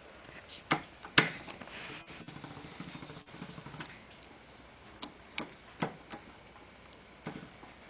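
Scattered sharp clicks and taps, about seven in all, from the Van Norman boring bar being worked as its cat's-paw centering fingers are expanded in the Willys F-head cylinder bore. A faint low hum runs under them for a couple of seconds near the start.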